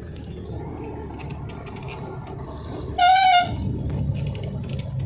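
Vehicle running along a road with a steady low engine and road rumble; about three seconds in, a horn sounds once for about half a second, the loudest thing heard.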